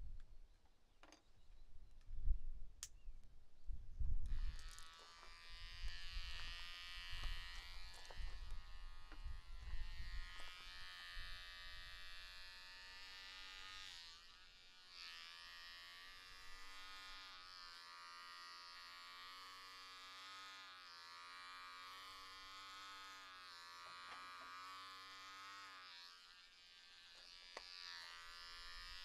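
Electric hair clippers switched on about four seconds in, then buzzing steadily as they are run through short hair, the pitch wavering slightly as the blades press against the head. Before they start there are a few low thumps of handling.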